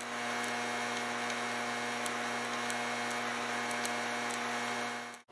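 A steady hum made of several held tones over a light hiss, with a few faint ticks.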